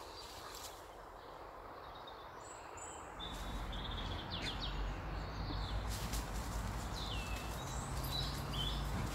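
Small birds chirping and singing in short rising and falling notes, more of them from about two and a half seconds in. A low rumble comes in about three seconds in.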